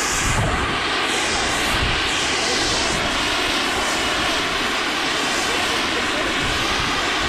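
Steady wind noise buffeting the microphone on an open mountain slope, a low rumble under a constant hiss.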